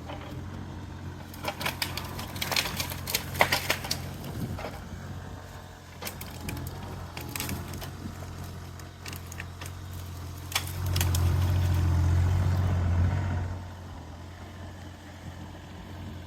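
Doosan DX35z mini excavator's diesel engine running steadily while a string of sharp cracks and snaps of breaking wood and brush comes in the first few seconds and again around seven seconds in. The engine grows louder under load for about three seconds past the middle, then settles back.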